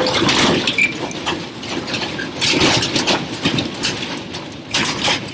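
Irregular clattering and knocking over a steady noisy rumble, typical of loose objects and fittings rattling in violent earthquake shaking.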